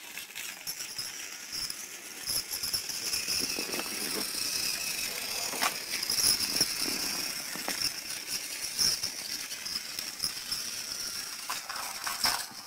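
Battery-powered Thomas the Tank Engine toy train running on plastic track: its small motor whines steadily, with occasional clicks and rattles from the wheels and track.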